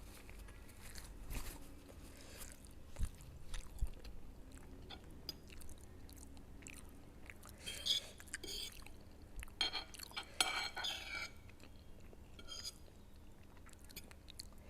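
Close-miked chewing and mouth sounds of a person eating noodles, eggs and fish dumplings, with small wet smacks and clicks. There are louder clusters of eating noise about eight and ten seconds in.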